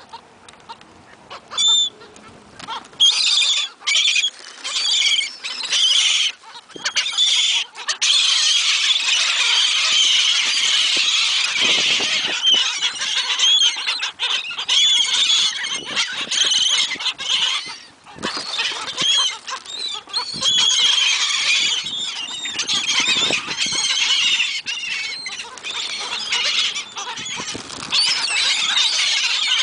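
A flock of seagulls calling loudly over one another as food is thrown to them: separate cries at first, then from about eight seconds in a dense, unbroken chorus of overlapping calls.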